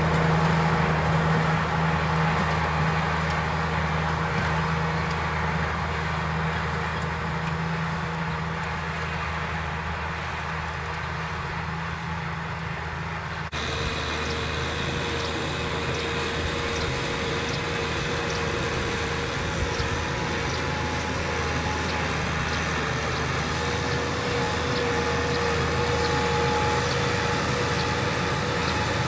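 Farm tractor's diesel engine running steadily under load while pulling a disc plow through dry stubble. About halfway through, the engine tone changes suddenly to a second steady drone with a higher hum on top.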